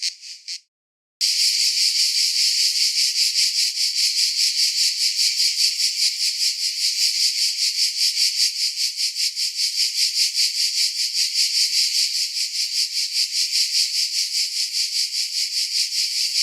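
Cicadas buzzing: a loud, high, rapidly pulsing drone that runs on without a break. Near the start, spaced pulses stop and there is a half-second of dead silence before the continuous buzz sets in.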